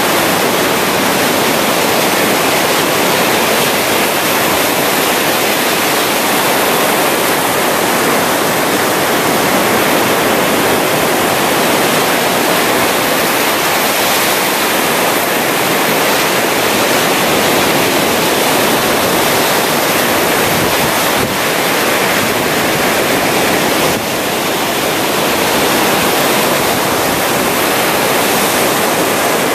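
Ocean surf washing onto a beach in a steady, continuous rush of water, with no distinct single wave breaks standing out.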